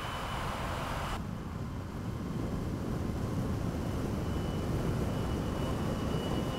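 Mercedes-Benz GenH2 hydrogen fuel-cell truck driving, with no combustion engine running: a steady low rolling rumble of tyres on the road, with a faint thin high whine. The higher hiss drops away abruptly about a second in.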